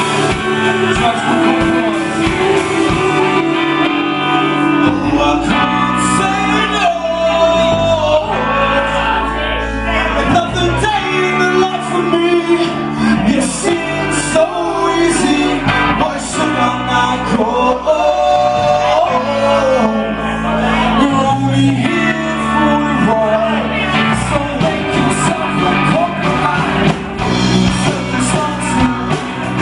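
Live rock band playing a song with a singer over guitar, bass and drums.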